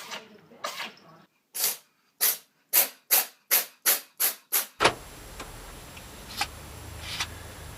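A cat sneezing in a rapid fit of about nine short sneezes, coming closer together, followed by a steady faint hiss with a few faint clicks.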